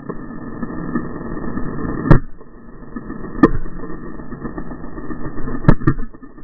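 Motocross bike engine running as it rides a rough dirt track, heard through a handlebar-mounted camera. Sharp knocks come about two seconds in, again a second and a half later, and as a quick pair near the end.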